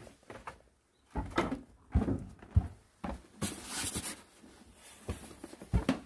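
Knocks and thumps of a styrofoam box being handled and carried across a wooden board, with a brief scraping rustle a little past the middle.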